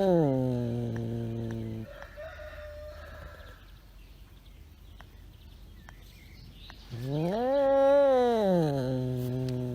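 An animal's long drawn-out call, twice, several seconds apart. Each call rises in pitch, then drops and holds a lower note for a second or more.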